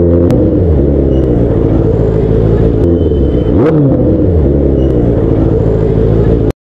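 Motorcycle engine running while riding. Its pitch falls shortly after the start, then dips and climbs again near the middle as the throttle is eased and reopened. The sound cuts off abruptly just before the end.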